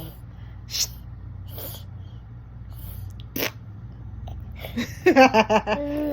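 A toddler making vocal noises: a few short breathy puffs, then near the end a quick run of voiced staccato pulses that ends in a held, slightly falling note.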